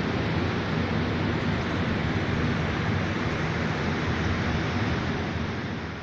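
Steady rushing air noise of a cold store's refrigeration fans, fading out near the end.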